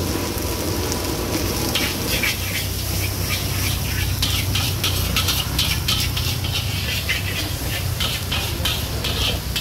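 Fried rice sizzling in a large steel wok while a metal spatula scrapes and strikes the pan in quick strokes, two or three a second, over a steady low hum.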